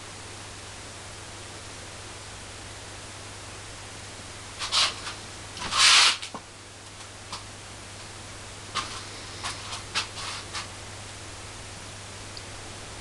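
Steady recording hiss and a low hum, broken by a few short handling sounds of hands working pizza toppings and reaching among bowls on the counter: one burst about five seconds in, the loudest about six seconds in, and a run of brief ones a few seconds later.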